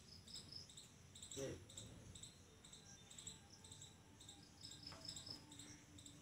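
Near silence with faint, high insect chirping, cricket-like, repeating in short quick groups throughout, and one soft knock about a second and a half in.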